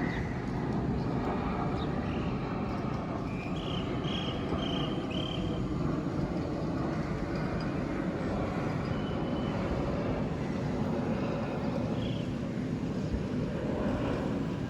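Engine noise of a landing jet airliner: a steady, even rush of sound that holds at one level throughout.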